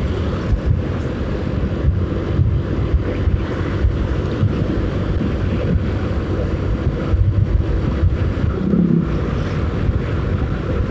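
Wind rushing over the microphone on a moving motorcycle, over the steady running of its engine and the road noise of riding at speed.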